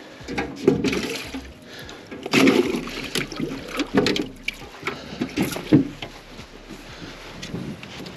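Water splashing in a boat's live well as a bass is put into it, with scattered knocks and bumps of handling on the boat.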